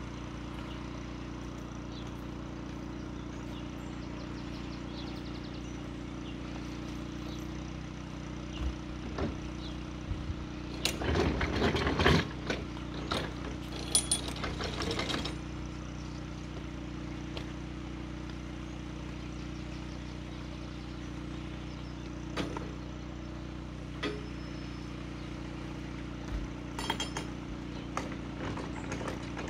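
Narrowboat diesel engine idling steadily. Over it, lock paddle gear is worked by hand, with bursts of metallic clanking and clicking about eleven to fifteen seconds in and again near the end.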